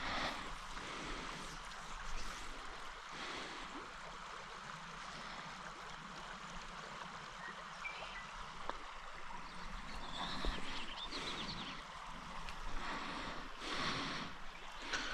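Stream water running steadily over rocks, with a few brief swells in the rushing noise.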